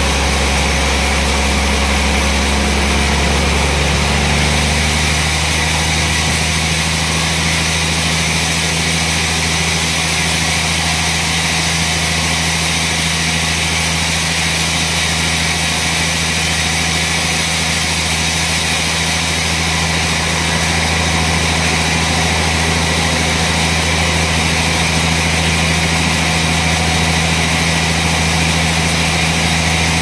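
Large band sawmill running steadily with a deep, even machine hum; about four seconds in the hum shifts slightly lower in pitch and then holds steady.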